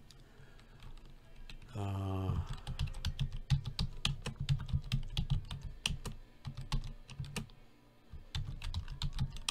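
Typing on a computer keyboard: quick runs of keystrokes, with a pause of about a second before the typing resumes near the end.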